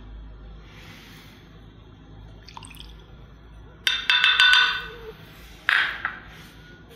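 Milk poured from a measuring cup into a bowl, splashing for about a second, then a shorter splash.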